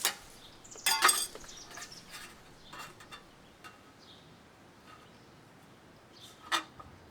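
Aluminum trim coil being cut and handled: a few sharp metallic snips and clinks, the loudest a quick cluster about a second in and another near the end.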